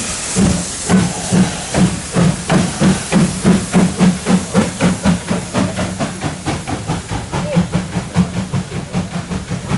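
Tkt48 steam tank locomotive pulling away, its exhaust chuffing over a steady steam hiss. The beats quicken from about two to over three a second as it gathers speed, then grow fainter as it draws off.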